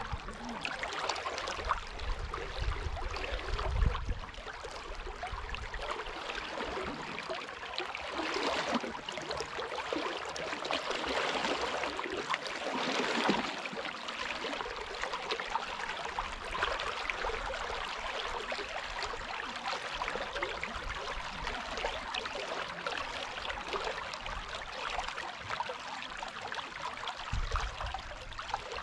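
Water of the Dunajec river rushing steadily, with brief low rumbles about three seconds in and again near the end.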